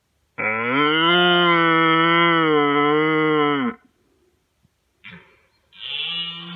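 Rutting red deer stag roar imitated on a hunter's calling tube: one loud, long roar of about three seconds, then a second, shorter roar starting near the end.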